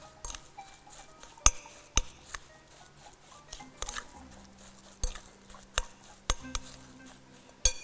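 Hands mixing a moist walnut-and-sugar filling in a glass bowl, with sharp clinks against the glass every second or so, about six in all.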